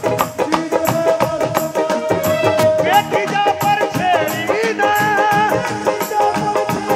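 Live Punjabi Sufi song: a male voice holds one long note, then about three seconds in breaks into ornamented, wavering phrases over dholak and other percussion keeping a steady quick beat.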